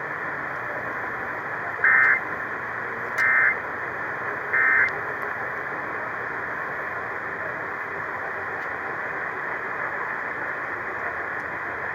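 Three short bursts of Emergency Alert System end-of-message data tones, a two-tone warbling screech, about a second and a half apart, marking the end of the alert. They come over the steady hiss of AM radio reception, and only the hiss follows.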